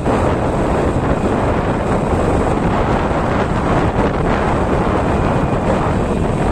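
Steady wind rushing over the microphone of a moving vehicle, mixed with the vehicle's engine and road noise.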